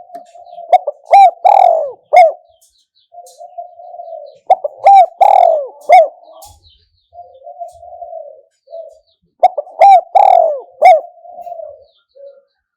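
Spotted dove cooing, three song phrases about four and a half seconds apart. Each is a soft rolling purr that leads into a few loud, clear coos.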